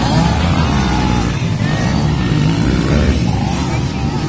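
Dirt bike engines revving, their pitch rising and falling over a continuous low drone.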